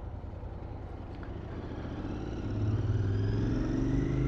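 Royal Enfield Interceptor 650's 648 cc parallel-twin engine pulling away at low speed. From about two and a half seconds in the exhaust note rises in pitch and grows louder as the bike accelerates.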